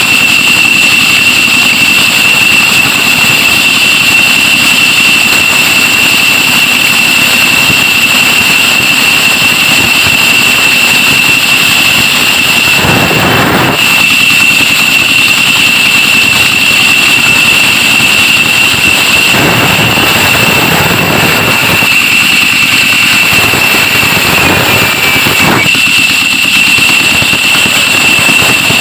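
Wood-cutting saw machine running with a loud, steady high-pitched whine over continuous machine noise, with several louder rushes of noise in the second half.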